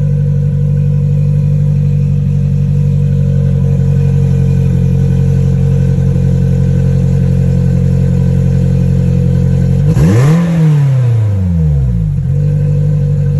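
Polaris Slingshot's 2.0-litre four-cylinder engine idling through a 1320 Performance race exhaust, with one quick throttle blip about ten seconds in that rises and falls back to idle.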